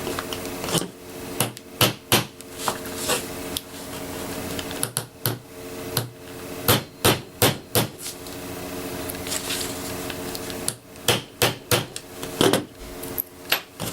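Sharp metal taps of a small hammer driving out a retaining pin, in three runs of rapid strikes, over a steady low background hum.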